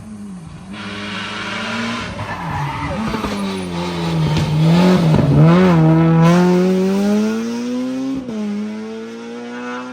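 Rally car passing flat out on an asphalt stage: the engine note falls with two quick dips as it brakes and changes down on approach, is loudest about halfway, then the revs climb as it accelerates away, with an upshift a little after eight seconds.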